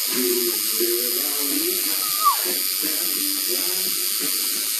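Electric tattoo machine buzzing steadily while tattooing a foot. Over it a person makes wavering vocal noises, with a brief rising squeal about two seconds in.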